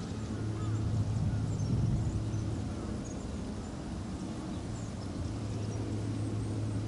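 Outdoor ambience: a steady low hum under a fluctuating low rumble, with faint, scattered high bird chirps.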